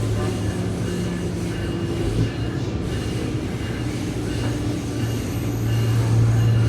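SMART diesel multiple-unit train running, heard from on board: a steady low hum with faint tones above it over rolling noise, getting somewhat louder near the end.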